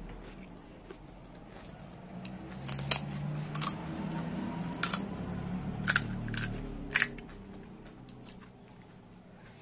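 Close-miked eating of crisp pani puri: chewing, with a run of about seven sharp crunches and cracks of the hollow fried puri shells between about three and seven seconds in.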